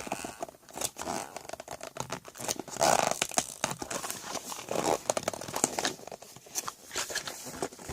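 A glued cardboard box flap being pried and torn open by hand: irregular crinkling and tearing with sharp clicks, the strong glue seal holding against the pull.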